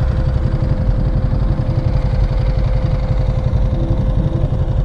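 Motorcycle engine idling steadily with a fast, even low pulse.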